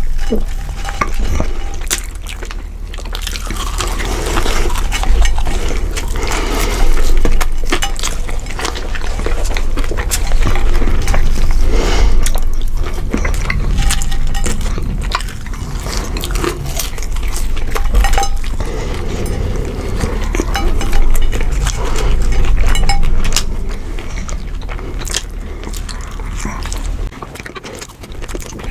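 Busy clatter and rustling of hands at food containers as french fries are eaten in a hurry, with many quick clicks over a steady low rumble.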